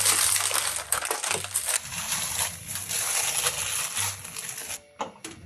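Plastic noodle packaging crinkling and rustling as it is handled and the fresh noodles are pulled out of the bag. It is a dense, crackly rustle that dies away near the end.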